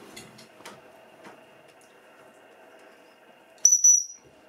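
A few faint ticks, then one short, loud, high-pitched squeak about three and a half seconds in, lasting about half a second: a squeaky toy sounded to test a police-dog puppy's reaction.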